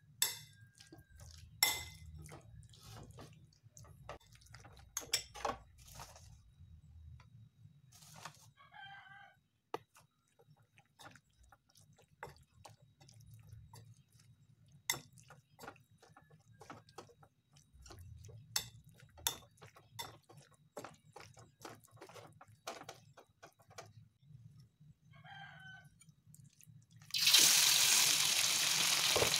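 A spoon clicking and scraping against a bowl while mixing sliced beef with seasoning and cornstarch, with a rooster crowing faintly twice. Near the end a sudden loud, steady sizzle starts as the meat goes into hot oil in a wok.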